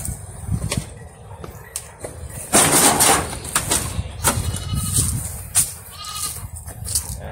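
Farm livestock calling: several short, high, bleat-like cries, with a loud noisy burst about two and a half seconds in.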